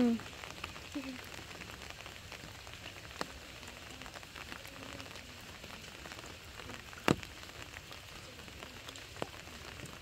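Steady rain falling on water and leaves, with scattered faint drop ticks and one sharp tap about seven seconds in.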